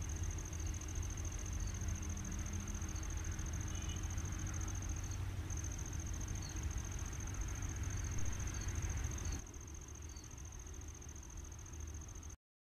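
A steady, high-pitched insect trill over a low rumble. Both drop in level about nine and a half seconds in and cut off suddenly just before the end.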